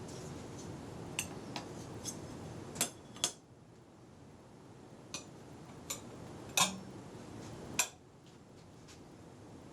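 Small metal parts being handled during the assembly of a router table insert plate: about nine light, irregular clicks and clinks, the loudest a little past halfway.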